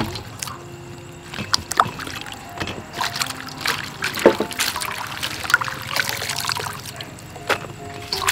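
Water sloshing and splashing in a steel bowl as hands toss and rinse shredded lotus shoots, in irregular splashes and drips, over soft background music.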